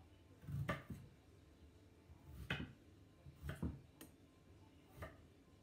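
Kitchen knife cutting vegetables on a wooden chopping board: about five or six soft, separate knocks, unevenly spaced about a second apart.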